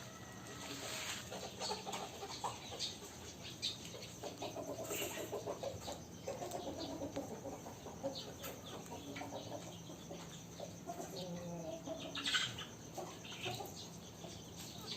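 Aseel chickens clucking in short calls, among scattered clicks and rustles, with one louder rustle about twelve seconds in.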